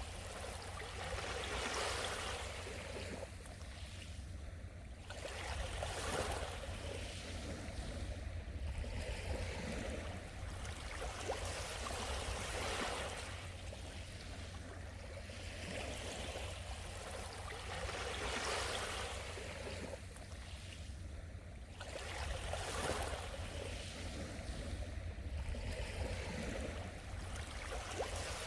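Small sea waves washing onto the shore. The sound swells and falls back every few seconds over a steady low rumble.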